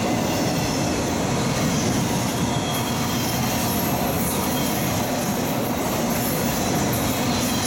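Autorack freight cars rolling past at a steady speed: a constant rumble and rattle of steel wheels on rail.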